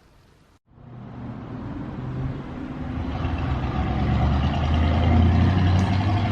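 A motor vehicle's engine running with a low steady hum, starting about half a second in and growing steadily louder over several seconds.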